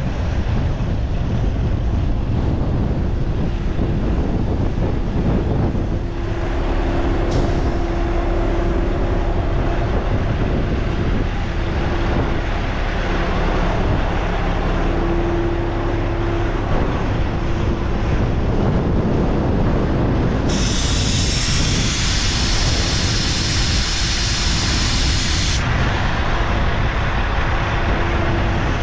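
Peterbilt 378 dump truck's diesel engine idling steadily. Partway through, compressed air hisses loudly from the truck's air system for about five seconds and then cuts off sharply.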